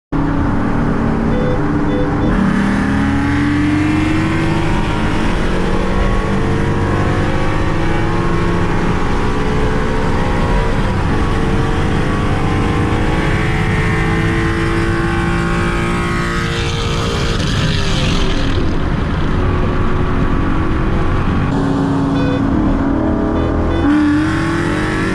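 Car engine at full throttle in a street race, its pitch climbing and dropping back at each upshift several times, with a loud rush of wind and road noise.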